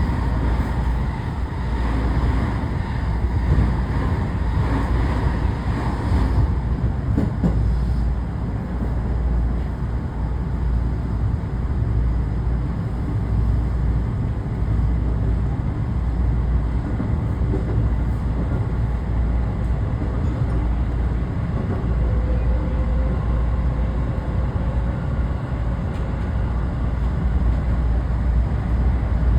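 Steady running noise of a JR commuter train heard from inside the car: a continuous low rumble of the train in motion, a little fuller in the first several seconds.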